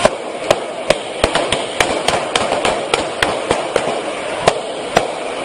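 Repeated gunfire: about fourteen sharp shots at irregular spacing, roughly two to three a second, over a steady background noise.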